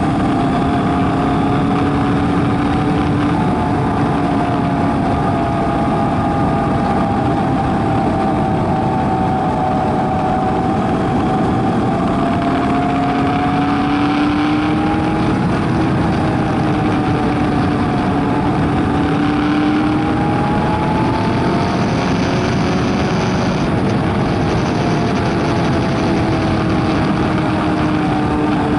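Kawasaki Versys 1000 inline-four engine running on the move, its note slowly rising and falling with the throttle through the bends, under a steady rush of wind and road noise.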